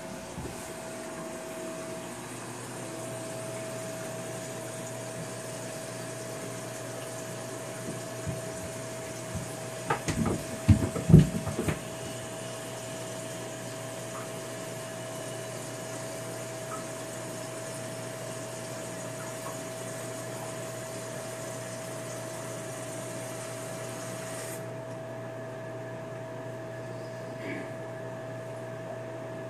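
Steady low hum and hiss with a faint constant high tone, broken about ten seconds in by a short cluster of knocks and bumps; the high hiss drops away near the end.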